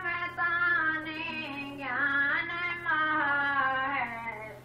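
A high voice singing long, drawn-out notes of a slow melody, with a couple of short breaks between phrases.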